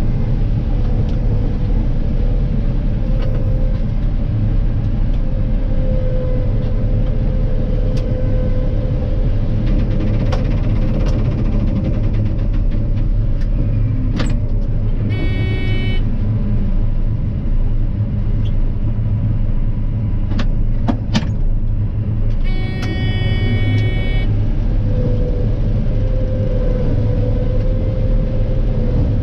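Combine harvester running steadily while harvesting soybeans. Two short pitched tones sound about halfway through and again a few seconds later.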